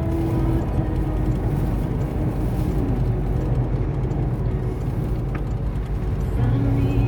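Steady low rumble of a car driving on a highway, with engine and road noise and no sudden events.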